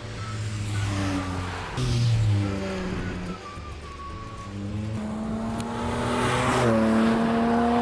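Porsche 718 Spyder RS's 4.0-litre naturally aspirated flat-six engine running under load across a string of short clips, its note jumping at each cut. In the later part it climbs in pitch as the car accelerates, with a brief drop as it passes by.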